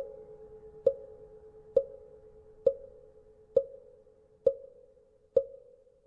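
Buddhist wooden fish (mõ) struck at a steady slow pace, seven knocks a little under a second apart, each with a short pitched ring. Beneath them the lingering hum of a temple bell slowly fades away.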